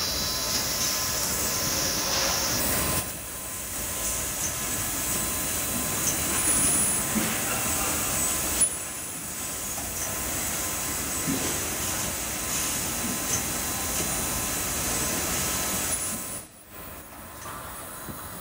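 Automated ultrasonic welding machine running in its production cell: a steady machine hiss with faint steady tones and a few soft clicks. The hiss drops noticeably about three seconds in, and the sound dips briefly near the end.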